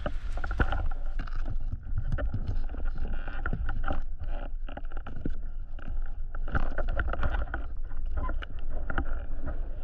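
Underwater sound heard through a camera housing: a steady muffled rumble of moving water with many small clicks and knocks and some bubbling as a spearfisher moves against the rock.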